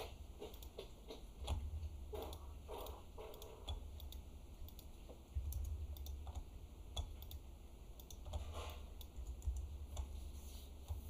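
Scattered light clicks and taps of a computer keyboard and mouse being worked, over a steady low hum.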